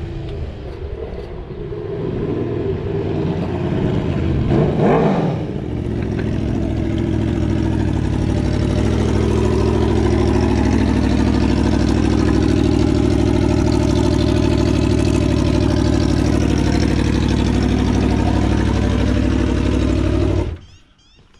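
Aprilia V4 1100 Factory motorcycle's V4 engine running loud through a cheap clamp-on exhaust tip in place of the stock rear exhaust section. It revs up and falls back once about five seconds in, then idles steadily until it is switched off near the end.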